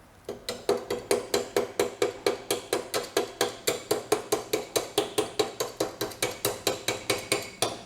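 Rapid, evenly spaced metallic taps, about five a second, each with a short ring, stopping just before the end.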